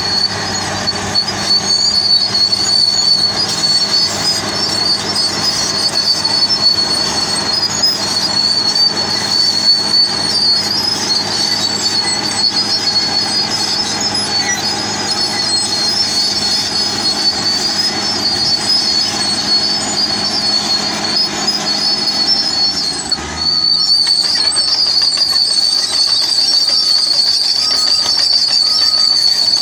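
Crawler bulldozer's diesel engine running steadily while the machine pushes sand, with a steady high-pitched whine throughout. After a brief break about three-quarters of the way in, a reversing alarm starts beeping about once a second.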